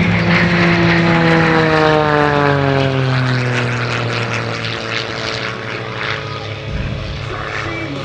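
Edge 540 aerobatic plane's six-cylinder Lycoming piston engine and propeller running hard in flight. The pitch falls steadily over the first four seconds or so, then holds level.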